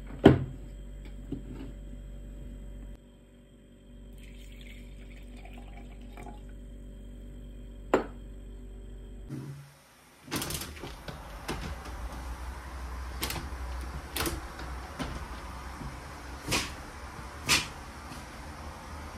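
A sharp click, then a steady low hum for about nine seconds. A window is then opened, letting in an even rush of outside noise, with several sharp clicks and knocks from the window handle and frame.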